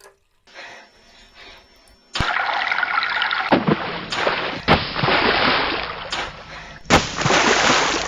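Water sound effect: running and splashing water that cuts in abruptly about two seconds in, after a faint start, and jumps in level several times as if spliced from pieces.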